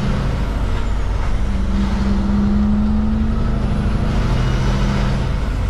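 Cummins diesel engine of a Kenworth K200 cab-over truck running under load as the truck pulls a single trailer up to speed, heard from inside the cab as a steady low drone.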